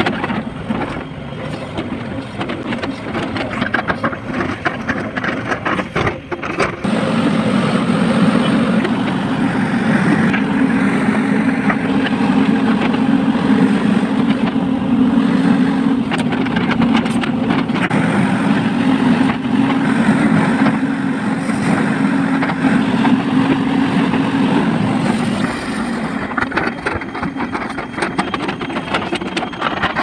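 Diesel engine of a JCB tracked excavator running under load while digging, growing louder and heavier about seven seconds in and easing off again near the end.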